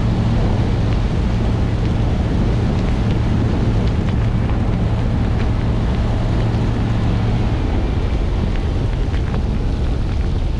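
A 4x4 driving through deep snow: its engine drones steadily and its tyres churn snow, with heavy wind noise on the side-mounted microphone. The engine's drone eases off about seven and a half seconds in.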